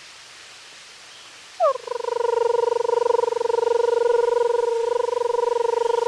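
A woman's voice: after a second and a half of a faint steady rush from the waterfall, she slides quickly down into a high sustained vocal tone and holds it. The tone carries a fast, even flutter, like a rolled trill.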